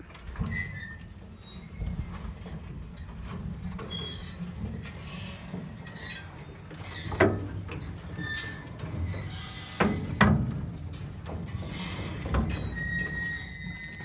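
New Holland 426 small square baler's plunger and crank arm being turned over by hand: scattered metal clunks and knocks with brief squeaks over a low rumble, and a held squeal near the end.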